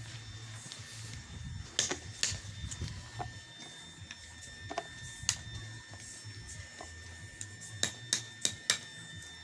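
Irregular sharp clicks and knocks: a pair about two seconds in, one in the middle, and a quick run of four near the end, over a low steady hum.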